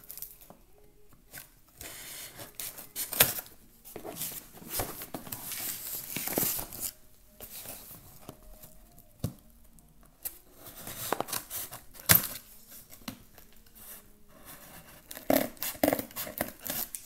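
Scissors snipping and cardboard tearing as a paperboard box is cut open, in irregular bursts with several sharp clicks.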